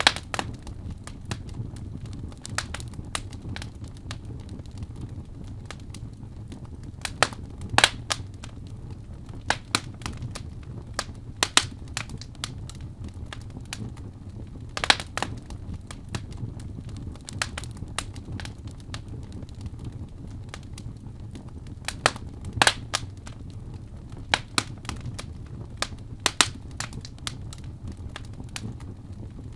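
Wood fire burning in a fireplace: a steady low rumble of flames with scattered crackles and sharp pops, a few of them louder.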